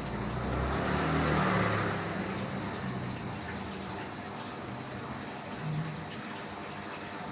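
Steady rushing background noise with a faint low hum, swelling briefly about a second in.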